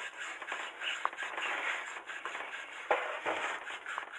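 Hand scrubbing and handling of a cast brake caliper over a stainless steel sink: irregular scraping and rubbing with small clicks, and a sharper knock about three seconds in.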